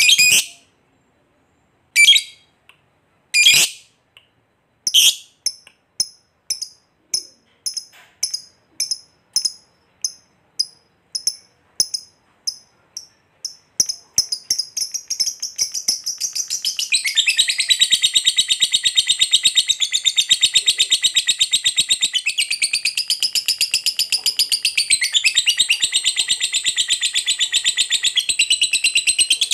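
Lovebird ngekek: a few sharp single calls, then chirps that come faster and faster until, about halfway through, they run together into a long unbroken high chatter. This is the long ngekek ('ngekek panjang') that lovebird keepers prize and play to set other lovebirds singing.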